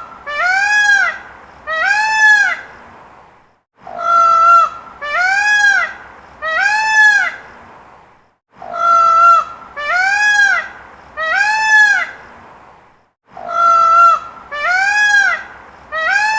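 Peacock calling: loud, honking three-note calls, a level first note followed by two rising-and-falling notes, repeated in bouts about every four to five seconds.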